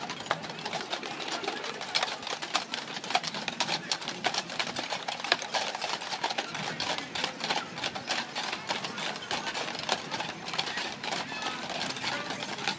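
Hooves of a team of Clydesdale draft horses clip-clopping on asphalt as the hitch walks past: a dense, irregular clatter of many hoofbeats.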